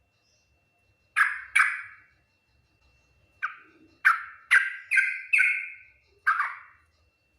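Yellow-vented bulbul (trucukan) giving short, bubbly call notes: a pair about a second in, a quick run of five in the middle, and one more near the end.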